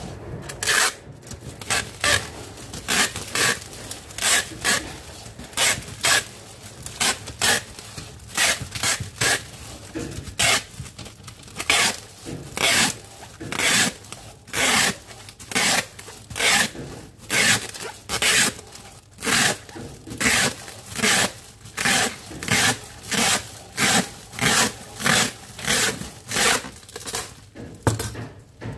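Clear plastic wrap being pulled off a handheld roll dispenser and wound over a domed plastic cover, in quick regular strokes, about three every two seconds.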